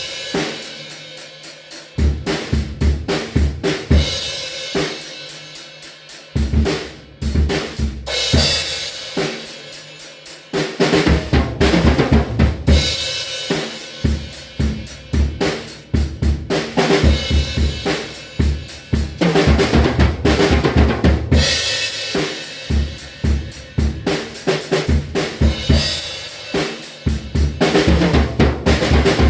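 Drum kit being played: kick drum, snare and hi-hat in a fast, steady beat, with stretches of crashing cymbals.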